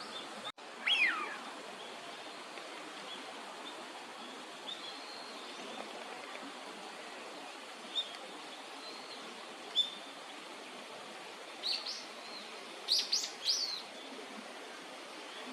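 Birds giving short, high chirps over a steady background hiss: a falling call about a second in, a few single notes, then a quick run of chirps near the end.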